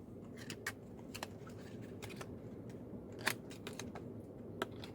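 Scattered light clicks and taps from handling a pen and paper, over a steady low hum.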